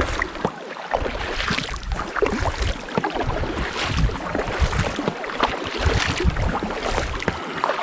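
Kayak paddles dipping and splashing in calm water, with water sloshing and knocking against the hull of an inflatable kayak in an irregular patter.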